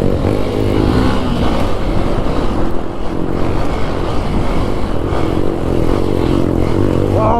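Motorcycle engine running while the bike is ridden, mixed with a dense, uneven rushing noise.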